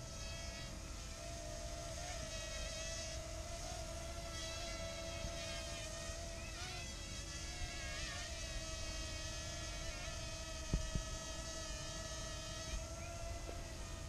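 Parrot Mambo minidrone's propellers whining steadily, the pitch dipping and rising slightly as it manoeuvres. A short low knock comes about three-quarters of the way through.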